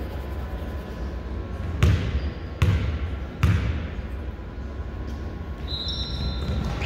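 Basketball bouncing on a gym floor: three loud bounces a little under a second apart, over a steady low hum, with a brief high squeak near the end.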